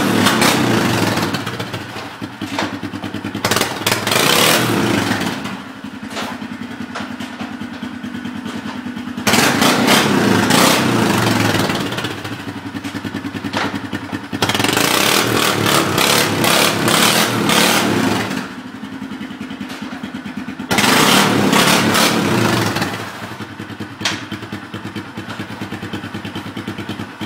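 Polaris Sportsman 500 ATV's single-cylinder four-stroke engine, fitted with a custom modified exhaust, revved hard in five bursts of two to four seconds each. Between bursts it drops back to a steady idle.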